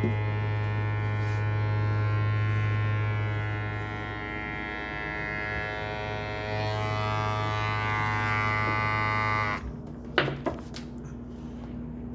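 An electric appliance's motor humming steadily with a buzzing, many-overtoned drone, which cuts off suddenly about nine and a half seconds in. A few sharp clicks follow, and a fainter steady hum remains.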